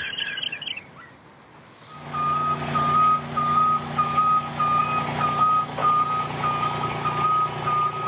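Haulotte scissor lift's warning beeper sounding about twice a second over a steady low hum, starting about two seconds in. Before it, a music crescendo stops abruptly under a second in.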